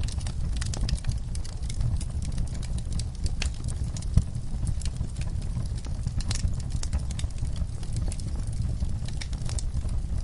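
Log fire burning: a steady low rumble of flames under frequent sharp crackles and pops from the burning wood, with one louder pop about four seconds in.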